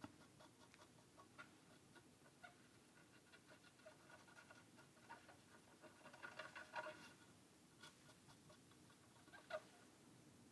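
Near silence, with faint scattered scratching and small squeaks of old flux residue being scrubbed off the PS5 motherboard's HDMI-port pads, a little busier near the middle and with one louder scratch near the end.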